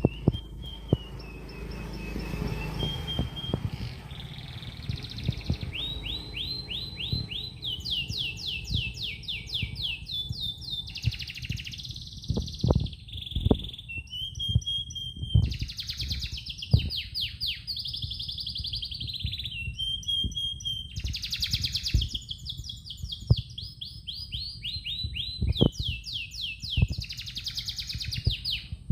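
Domestic canary singing: long rolling trills of fast repeated notes alternating with clear held whistles. There are occasional soft low knocks.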